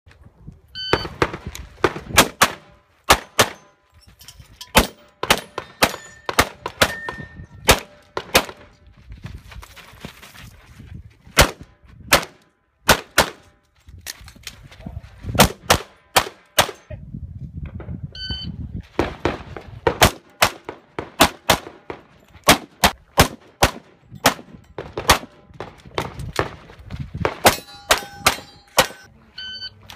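Rapid pistol fire in quick pairs and short strings, with brief pauses while the shooter moves between positions. A few sharp metallic rings sound among the shots.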